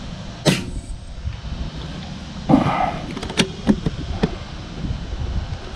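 A single sharp crack about half a second in, typical of an FX Crown Continuum PCP air rifle firing, followed later by a few smaller clicks and knocks. Strong wind rumbles on the microphone throughout.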